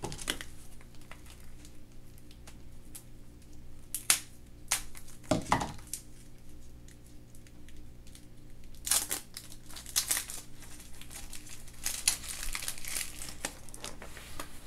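Surprise-egg wrapper being crinkled and torn open by hand, in scattered crackles with a couple of sharper knocks near the middle and a busier stretch of crinkling toward the end.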